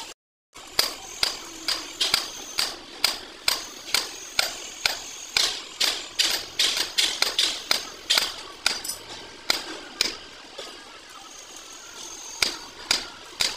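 A hammer striking the steel parts of an excavator track roller over and over, about two to three ringing metal-on-metal blows a second, with a short pause about ten seconds in.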